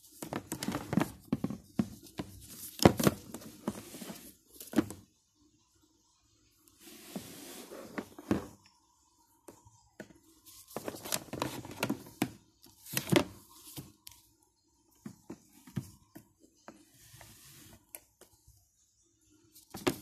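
Handling noise: rustling, knocks and clicks as hands move a hair dryer, its coiled power cord and plug, and its cardboard box, in irregular bursts with short pauses between.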